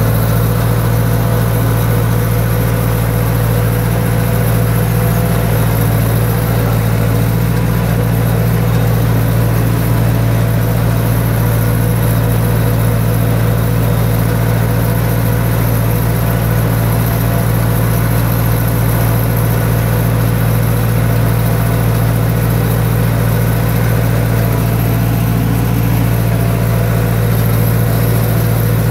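Small farm vehicle's engine running steadily at an even speed while driving, with a constant low hum and no change in pitch.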